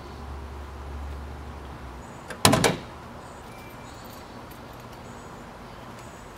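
A quick cluster of sharp latch clunks about two and a half seconds in, from a 2007 GMC Yukon XL being opened up to pop the hood.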